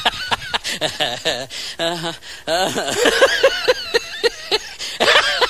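High-pitched voice making quick runs of short, laugh-like calls, about four a second in the longest run.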